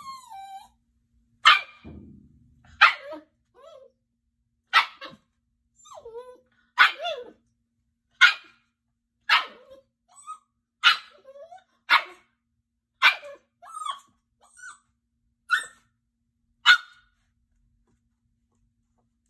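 Goldendoodle puppy barking at its own reflection in a mirror: about eleven short, high barks one to two seconds apart, with little whines between them.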